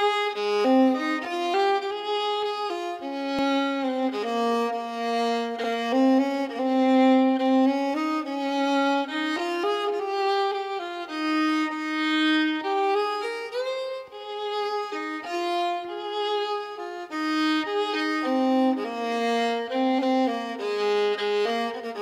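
Instrumental music: a bowed violin plays a melody of long held notes that glide from one to the next.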